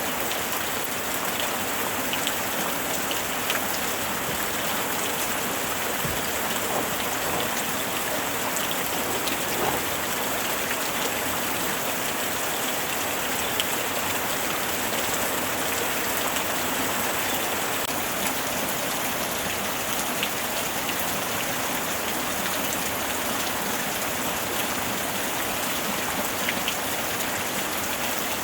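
Steady rain falling on surfaces, a continuous even hiss with scattered individual drops pattering and ticking throughout.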